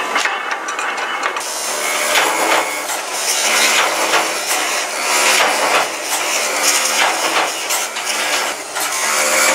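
Steel utensil blanks ground against an abrasive wheel on a bench electric motor: a loud, harsh grinding hiss that swells each time a piece is pressed to the wheel and eases as it is moved. It starts about a second and a half in, after a short spell of clicking machine noise.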